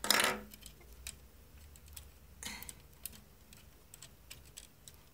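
Small plastic clicks and taps from a plastic transforming robot toy as its parts and a little weapon are handled and pushed into place. There is a short rustle at the start, the loudest sound, and another about two and a half seconds in.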